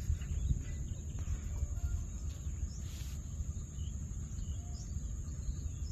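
Outdoor ambience: a steady low rumble of wind on the microphone under a continuous high-pitched insect drone, with a few faint short chirps.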